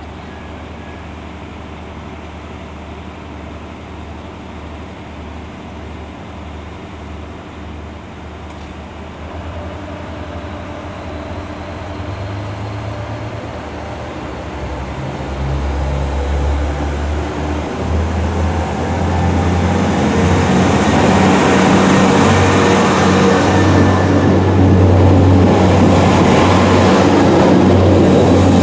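Northern Ireland Railways Class 3000 CAF diesel multiple unit idling steadily at the platform, then its diesel engines revving up as it pulls away, growing louder as the train accelerates past with wheel and running noise.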